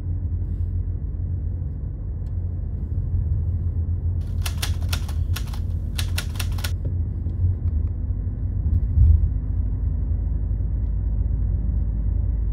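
A quick run of about a dozen typewriter key clicks in two short bursts, about four to seven seconds in, typed as a caption appears. Under them runs a steady low rumble.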